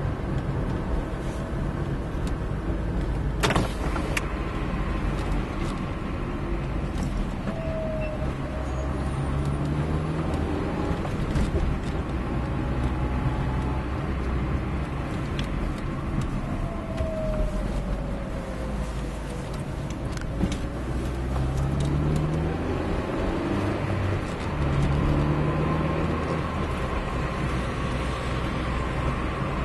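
Car engine and tyre noise heard from inside the cabin. The engine note rises three times as the car picks up speed, and there is a sharp click about three and a half seconds in.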